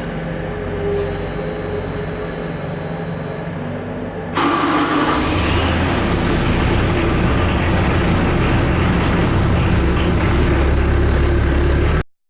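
Caterpillar 307C excavator's diesel engine running steadily. About four seconds in, the sound jumps suddenly louder and fuller, then carries on steadily until it stops abruptly near the end.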